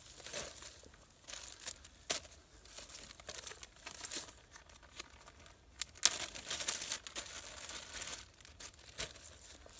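Irregular rustling and crinkling of something being handled, with scattered sharp clicks, the loudest about two seconds in and again about six seconds in.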